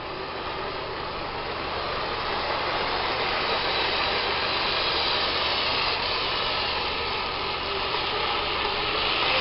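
Lima O gauge model train running: the electric motor and the wheels on the track make a steady running noise that grows louder toward the end as the train comes round toward the camera.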